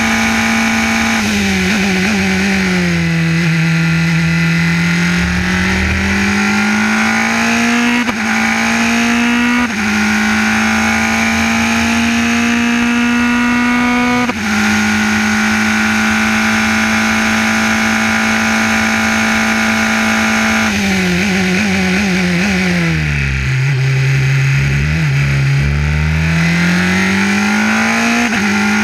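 Formula 3 race car's engine heard from onboard at racing speed. The note is high and steady, then falls in steps about a second in as the car brakes and shifts down. It rises again under acceleration with quick upshifts about 8, 10 and 14 seconds in and holds a steady high note, then drops once more about 21 seconds in and climbs again near the end.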